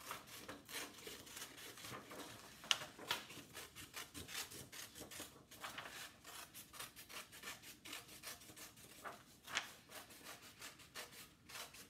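Scissors cutting through a sheet of construction paper in many short snips at an uneven pace, with the paper rustling as it is turned. Two snips, about three seconds in and near the end, are sharper than the rest.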